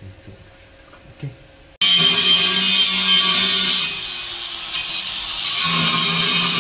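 Small handheld cut-off tool with a thin cutting disc running against the steel exhaust pipe. It starts abruptly about two seconds in with a loud hiss and a steady whine, eases off briefly, then bites again near the end.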